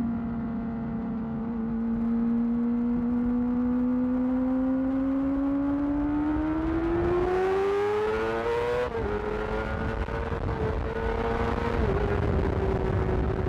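2008 Yamaha R6's inline-four engine through a Termignoni exhaust under way: its note holds steady, then climbs over about three seconds as the bike accelerates, drops suddenly on an upshift about nine seconds in, and dips once more near the end.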